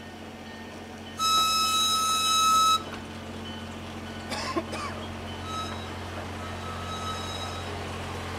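A locomotive horn sounds one loud, steady blast of about a second and a half, over the steady low hum of an idling engine. Two much fainter notes at the same pitch follow later, one short and one longer.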